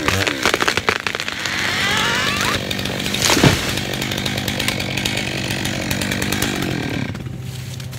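Chainsaw running hard while cutting a poplar, with crackling in the first second or so and a sharp sweep about three and a half seconds in; about seven seconds in it drops back to a lower, steady idle.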